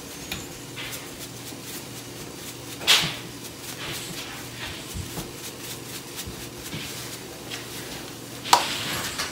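A seasoning-salt shaker shaken over a pot of drained potatoes: a run of faint ticks and patters, with a louder knock about three seconds in and another near the end, over a faint steady low hum.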